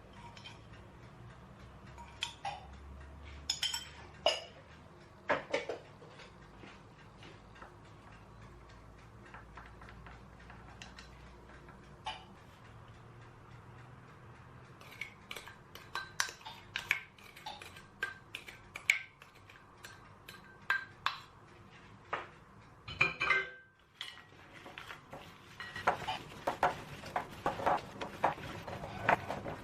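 Dishes and cutlery clinking and knocking as they are handled, in scattered separate clinks with a denser run of clatter near the end.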